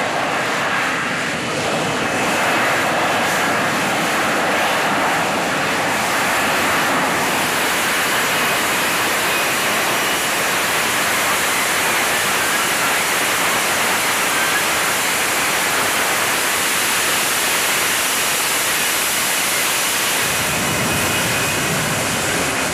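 F-35B's jet engine and lift fan running at high thrust in a hover for a vertical landing: a steady, loud jet noise.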